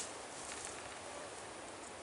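Steady rustle of leaves with outdoor hiss and a single sharp click right at the start.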